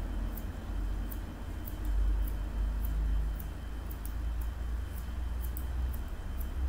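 Hair-cutting scissors snipping through a fringe: short crisp snips at an uneven pace, about two a second, over a low steady rumble.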